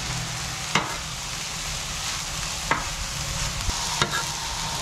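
Shredded cabbage sizzling in hamburger grease on a Blackstone steel griddle while it is tossed with metal spatulas. Three sharp clicks of the spatulas against the griddle top cut through the steady sizzle.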